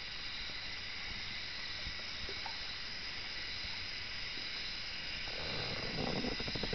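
Rainforest ambience: a steady high-pitched hiss. From about five seconds in, a rough, fast-fluttering lower sound comes in and runs through to the end.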